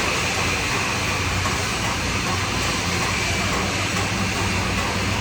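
TIG (argon) welding arc on a pipe root pass, with the welding set running: a steady hiss over a low mains hum.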